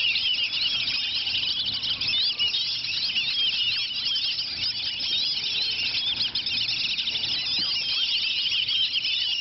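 A flock of whistling ducks whistling all at once: a constant chatter of high, overlapping squeaky whistles, as they squabble over food.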